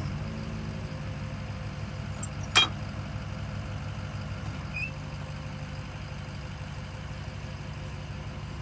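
Geoprobe direct-push drill rig's engine and hydraulics running with a steady low drone, with one sharp click about two and a half seconds in.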